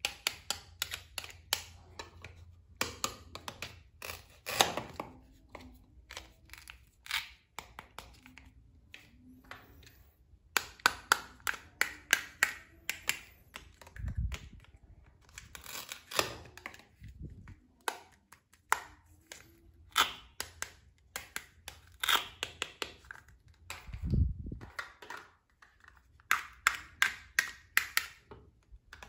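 Plastic toy knife cutting through velcro-joined toy fruits and vegetables, the velcro tearing apart in clusters of crackly rasps, with clicks and taps of plastic pieces against each other. There are two dull thumps, one about halfway through and another near the end.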